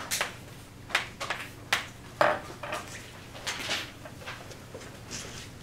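Scattered light taps and knocks in a classroom over a low steady hum, including chalk tapping on a blackboard as 'Ex 3' is written in the first few seconds.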